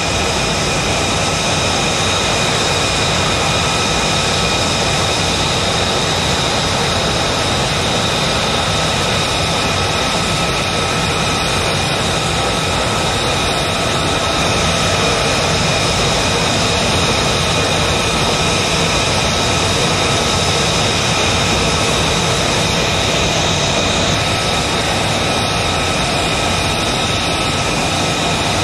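F-35A Lightning II's Pratt & Whitney F135 turbofan running steadily at low taxi power: a continuous rushing roar with steady high-pitched whining tones.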